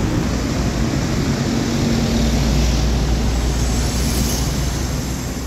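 Busy road traffic: a steady rumble of passing vehicles.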